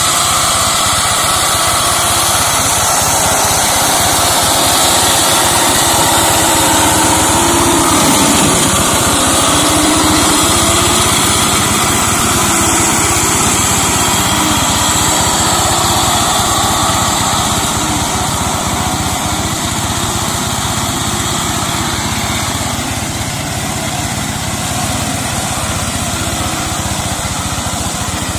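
Single-cylinder diesel engine of a two-wheel hand tractor, converted into a brush mower, running steadily under load while cutting through undergrowth. Its note sags briefly about eight seconds in and recovers, and it grows a little fainter in the second half.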